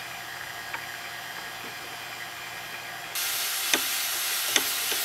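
Quiet steady hiss with a faint click, then, after a sudden step up in hiss about three seconds in, a couple of sharp metal clicks from a small ratchet wrench turning a bolt on a pop-up headlight assembly.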